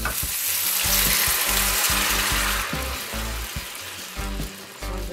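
Coconut milk poured into a hot frying pan of shrimp and onions in oil, setting off loud sizzling that swells in the first second and dies down over the next few as the pan cools. Background music with a steady bass beat runs underneath.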